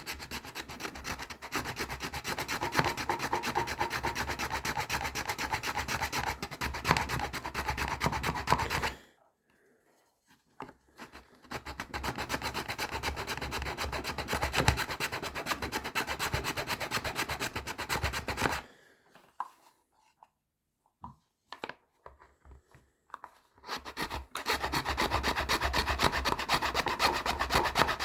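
Hand file rasping through the edge of a carrying case in rapid back-and-forth strokes, in three spells. It stops about nine seconds in and again about eighteen seconds in, with a few light knocks during the second pause.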